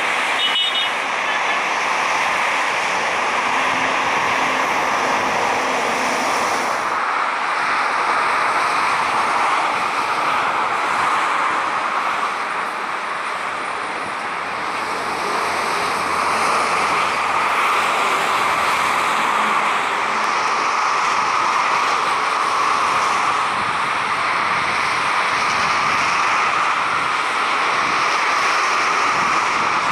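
Jet engines of a Boeing 737-800 airliner running on the ground, a steady rushing noise that dips a little around the middle and swells again.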